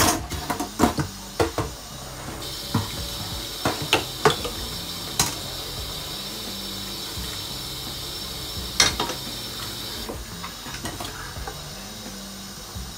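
Metal kitchenware clattering: a stainless steel bowl and utensils knocked and set down in a series of sharp clinks. A steady hiss comes in about two seconds in and stops about ten seconds in.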